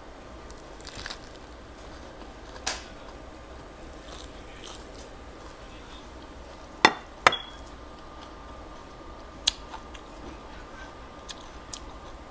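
Quiet eating of a lettuce-wrapped bánh xèo, with a few sharp clinks of a glass dipping bowl and dishes. The loudest are two clinks close together about seven seconds in.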